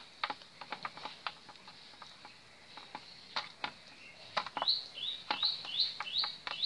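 A hand rubbing beaten egg over a whole raw chicken: wet, sticky clicks and squishes of palm and fingers on the slippery skin. About two-thirds in comes a quick run of about five short high squeaks or chirps.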